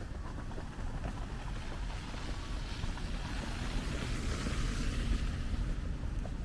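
A vehicle passing on a slushy street, its tyre hiss swelling to a peak about four seconds in and then fading, over a steady low rumble of wind on the microphone.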